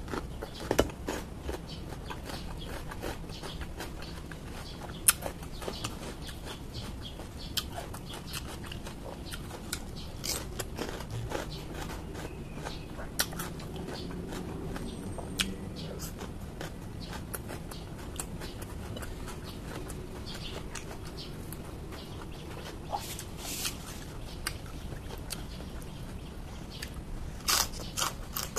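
Close-up mouth sounds of a person biting into and chewing raw, crisp vegetables such as cucumber, with scattered sharp crunches and several louder bites near the end, over a steady low hum.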